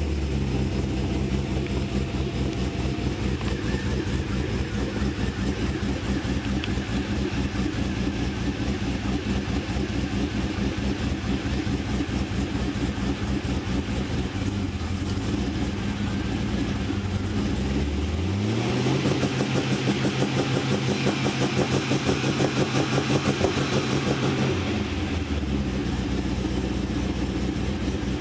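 Twin-turbo LS2 V8 of a 2005 Pontiac GTO idling, then revved at about 18 seconds in and held at a steady, louder level with a rapid stutter against the Lingenfelter launch controller's spark cut at 2,000 RPM, before dropping back to idle about six seconds later.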